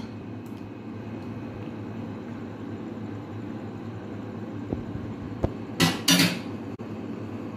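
Spoon working sauce over enchiladas in a glass baking dish: a couple of light taps, then two short scrapes about six seconds in, over a steady low hum.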